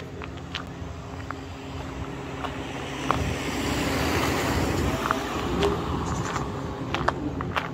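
A van passes on the road alongside: its engine and tyre noise swells over a couple of seconds, peaks about halfway through, then fades as it drives on. Light footsteps crunch on a gravel path throughout.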